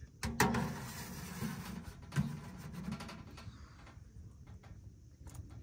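Metal baking tray being slid into the steel oven box on top of a wood-burning tent stove: knocks about half a second in, then metal scraping and clattering for a few seconds. After that, only faint scattered ticks.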